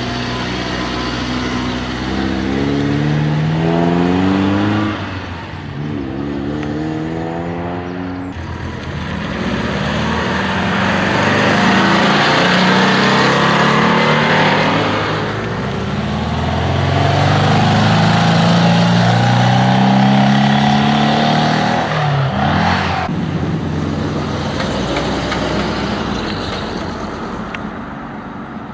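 Several classic cars, among them an Alfa Romeo Giulietta Sprint and a Porsche 356 cabriolet, drive past one after another, their engines accelerating away from a bend. The engine pitch rises and then drops at each gear change, once in the first few seconds and again past the middle.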